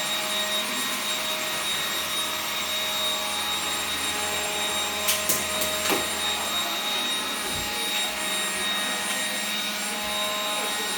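Tefal Air Force Extreme Lithium 14.4V cordless vacuum cleaner running steadily, with a motor whine of several held tones over the suction noise. A few sharp clicks come about five to six seconds in.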